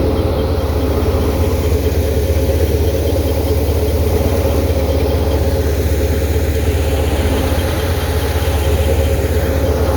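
Tractor engine driving a wheat thresher, both running steadily.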